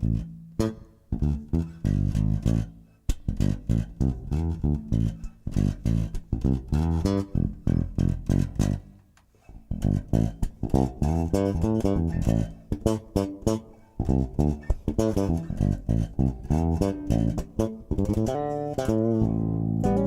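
Bravura electric bass guitar played with its passive tone knob rolled down to about 25% or off, giving a Motown-style bass sound: a line of plucked notes with a short break about halfway through and a last note left ringing.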